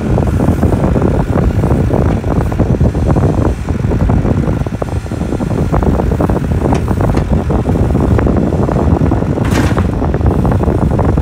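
Small crawler excavator's diesel engine running hard as the machine hauls itself through deep mud, with frequent sharp clanks from the machine. A brief hiss about nine and a half seconds in.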